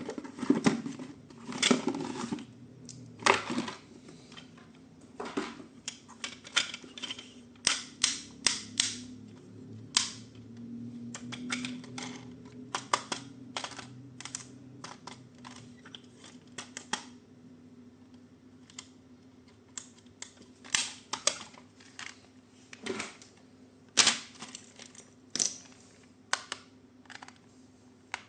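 Hard plastic toy parts and packaging being handled: irregular sharp clicks and taps, sometimes in quick clusters, with a faint low hum underneath.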